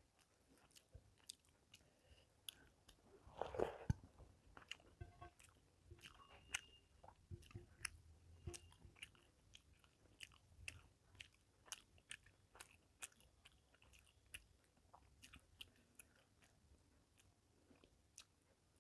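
Faint close-up eating sounds of a person chewing rice and fish curry: a steady string of soft wet lip smacks and mouth clicks, with one louder, longer sound about three and a half seconds in.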